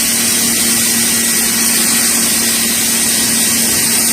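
Sun Joe SPX4000 electric pressure washer running with the trigger held: a steady motor-and-pump hum under the loud hiss of the water jet from a 40-degree tip.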